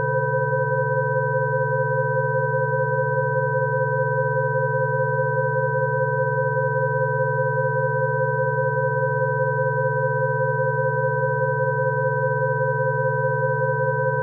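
Rife frequency tones: several steady electronic pure tones sounding together at once, from low to fairly high pitch, unchanging throughout, with a fast slight flutter in one of the middle tones.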